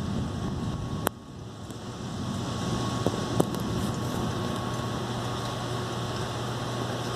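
Steady rushing noise of a thunderstorm over a low hum, with a sharp click about a second in and two smaller clicks a couple of seconds later.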